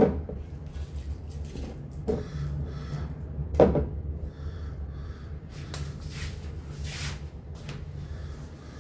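Groceries being handled and set down: three distinct knocks or bumps in the first four seconds, then fainter rustling and light clicks, over a steady low hum.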